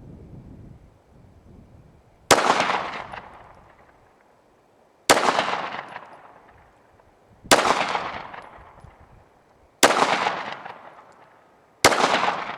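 Five single shots from a 9mm Glock pistol, fired slowly about two to three seconds apart, each sharp report dying away over a second or so.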